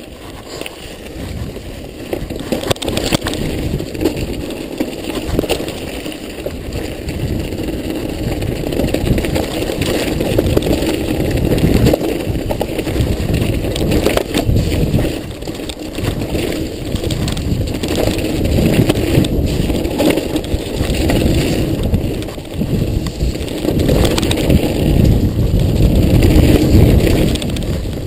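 Mountain bike riding fast down a dirt and gravel trail: tyres rolling and crunching over the ground, the bike rattling and knocking over bumps, and wind buffeting the microphone. The noise builds over the first ten seconds or so as the bike picks up speed, then stays loud, with brief dips.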